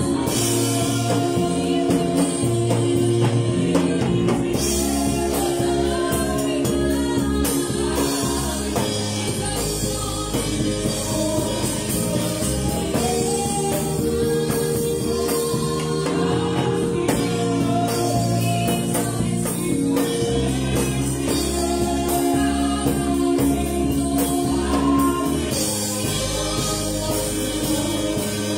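Live gospel worship music: a woman sings over sustained electronic keyboard chords while a drum kit is played with sticks.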